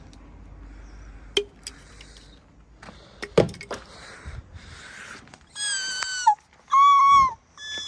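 Gulls calling: three loud, pitched calls in the second half, each about half a second long, the first and last dropping in pitch at the end. They follow a couple of sharp knocks.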